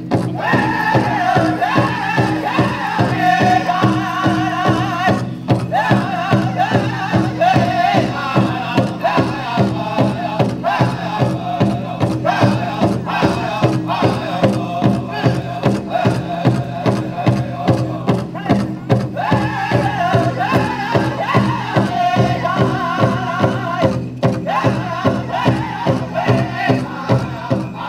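Powwow drum group singing in unison over a steady beat on a large shared drum, about two beats a second.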